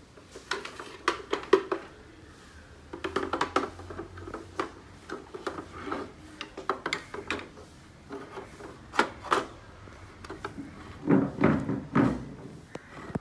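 Hard plastic clattering and clicking as a soda maker's plastic casing is handled and a CO2 gas cylinder is fitted into it: irregular knocks and taps, with the loudest cluster near the end.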